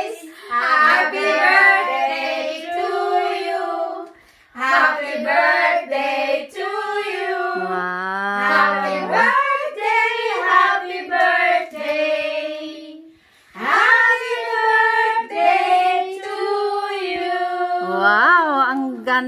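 A small group of women singing together in high voices, in held, drawn-out phrases with two short breaks, about four seconds in and again about thirteen seconds in.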